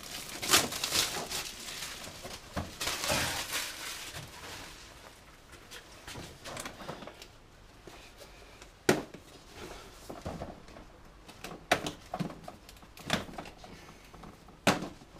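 Cellophane wrapping crinkling and tearing as it is pulled off a cardboard socket-set box, then the box being handled with light rustling and a few sharp knocks.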